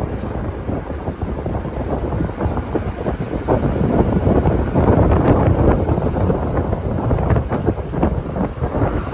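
Wind buffeting the microphone of a camera filming from a moving car, over a low road rumble; the buffeting swells louder about four seconds in.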